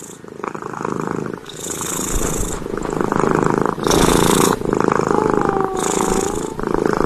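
Domestic cat purring loudly and close up, a continuous rough rumble that swells with a breathy hiss about every two seconds.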